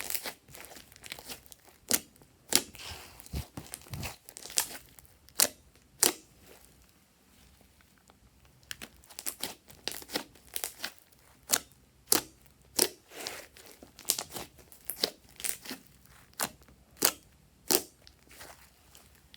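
Slime being squeezed and worked by hand, giving off irregular sharp crackles and pops, about one or two a second, with a quieter pause partway through.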